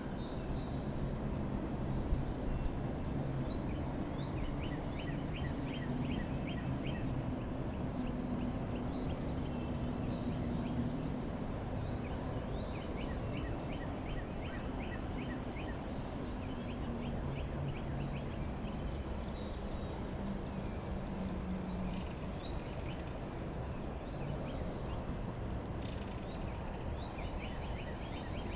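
Outdoor ambience with birds: several stretches of rapid chattering notes, several a second, plus short high chirps, over a steady background hum and outdoor noise.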